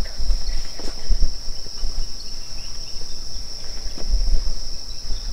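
Crickets chirring in a steady, high-pitched night chorus, over low uneven rumble and bumps from the camera being carried and handled.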